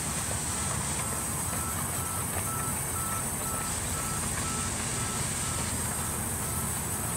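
Sawmill band saw running steadily as a timber slab is fed through the blade: a constant motor hum with a high whine. A faint short beep repeats about twice a second alongside it.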